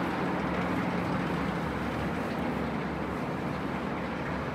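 Steady outdoor background din with a faint low hum in the first second or so, and no distinct single event.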